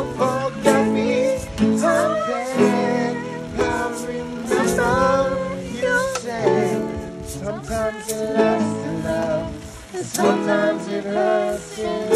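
Ukulele strummed in steady chords, with a man and a woman singing along.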